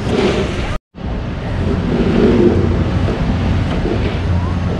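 Stage fire effects burning off, a steady low rumbling roar that cuts out completely for an instant about a second in.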